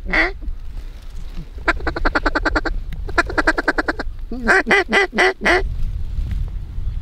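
Mallard duck call blown in loud hen quacks and feed chatter: a quack just as it starts, two runs of rapid clucking at about ten notes a second, then a string of about six quacks. A low wind rumble runs underneath.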